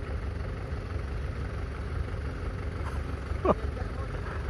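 Tractor engines running steadily at a distance, a low rumble. One brief sharp call or squeak cuts in about three and a half seconds in.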